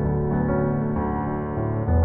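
Background music: slow piano or keyboard music with sustained notes.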